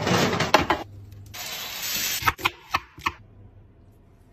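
Kitchen food-preparation sounds: two short bursts of rustling, hissing noise that start and stop abruptly, then a few sharp clicks and knocks, dying away to a faint hum for the last second.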